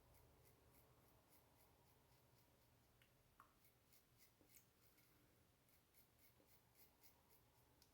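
Faint scratch of a Gillette Sheraton safety razor cutting short stubble through lather, in quick short strokes about three a second.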